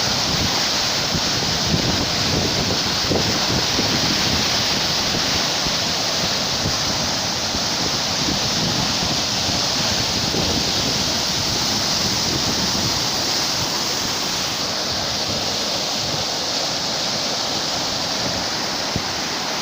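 Floodwater rushing past in a steady, unbroken roar that eases slightly toward the end.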